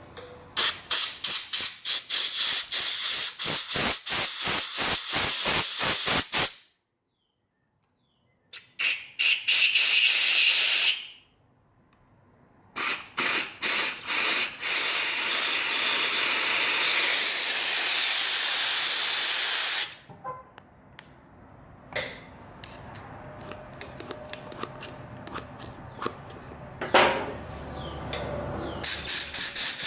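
Compressed-air blow gun blasting through the jets and passages of a GY6 carburetor to clear out cleaning fluid. It starts with rapid short bursts of hiss in quick succession, then gives longer steady blasts, one lasting several seconds.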